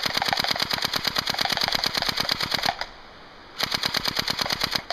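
Cyma CM022 AK-47 airsoft electric rifle (AEG) with a plastic gearbox firing on full auto: a rapid, even clatter of shots that stops nearly three seconds in, then a second, shorter burst after about a second's pause.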